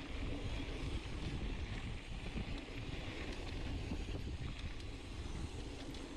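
Wind buffeting the microphone of a handlebar-mounted camera on a mountain bike descending a dirt trail, mixed with tyre noise on dirt and small clicks and rattles from the bike over bumps.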